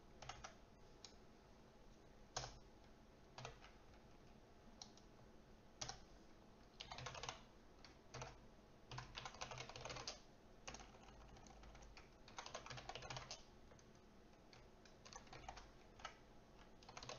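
Faint computer keyboard typing in irregular bursts: scattered single keystrokes, then several runs of rapid keystrokes.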